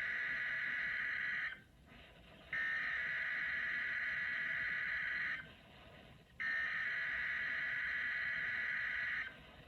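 Emergency Alert System SAME header from a NOAA Weather Radio weekly test: three buzzy digital data bursts, each about three seconds long, with a pause of about a second between them. The first burst ends about a second and a half in.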